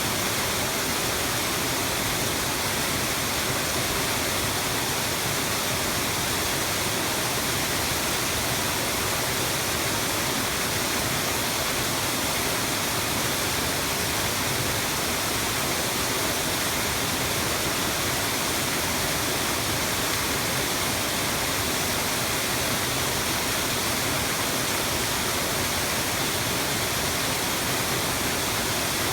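Mountain waterfall crashing steadily: a constant, even rush of falling water with no change in level.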